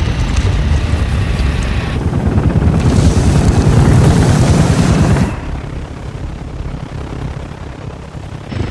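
Helicopter rotors and engines running with a fast steady chop and heavy low rumble. The sound swells to its loudest and then drops off sharply about five seconds in, leaving a quieter rumble.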